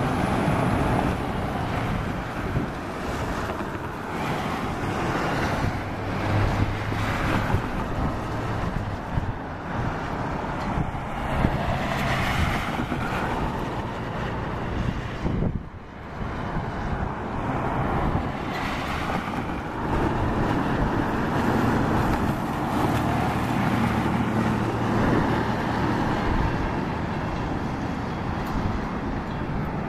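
Strong gusty wind buffeting the microphone, with a low steady rumble underneath at times.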